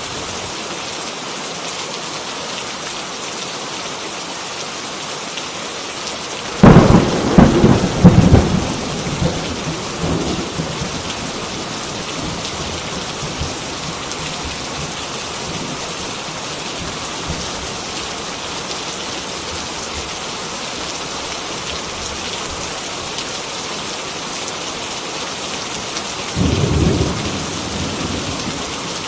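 Heavy rain falling steadily, with a sudden loud crack and rumble of thunder about a third of the way through that fades over several seconds, and a second, softer roll of thunder near the end.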